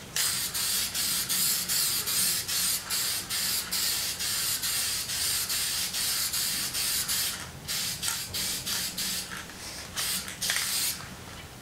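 Aerosol spray paint can hissing in quick pulses, about three a second, as light coats go on. There is a short pause about seven and a half seconds in, and the spraying trails off near the end.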